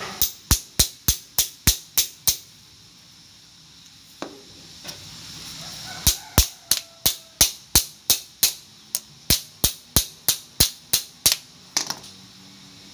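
Rapid sharp metal taps, about four a second, as pliers strike a YOKO motorcycle rear shock absorber. A run of about ten taps, a pause of several seconds, then a longer run of about twenty.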